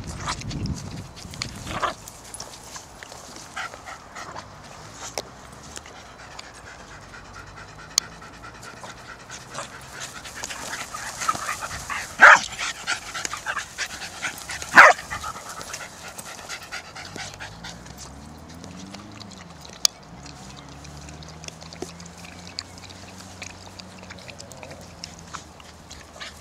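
A Jack Russell cross dog panting and snuffling as it noses a football along the grass, with two loud, sharp sounds about halfway through.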